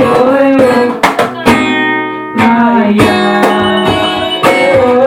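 Guitar-led Bahian carnival music, with chords strummed in a steady rhythm under a wavering melody line.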